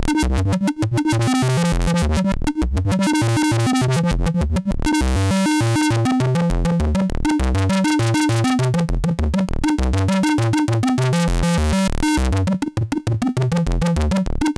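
Eurorack modular synthesizer patch running through the Make Noise LxD vactrol low-pass gate. It plays a fast sequence of short, stepped bass notes, and their brightness shifts as the patch is adjusted.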